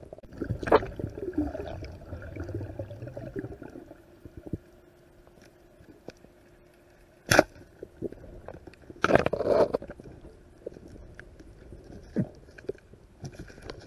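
Muffled underwater sound picked up by a diver's camera: a low rumble of water movement, with a few sharp knocks and clicks, one near the middle and a cluster about nine seconds in.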